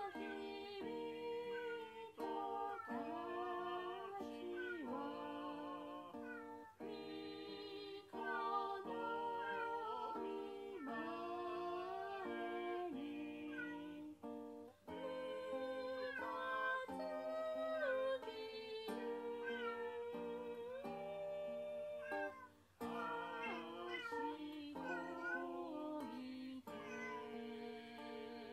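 Background music with plucked strings carrying a melody.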